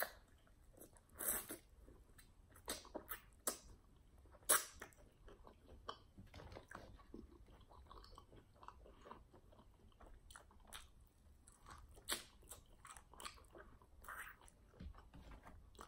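Close-miked eating of crispy fried chicken wings: scattered biting crunches and chewing, with the loudest crunches about a second in and about four and a half seconds in.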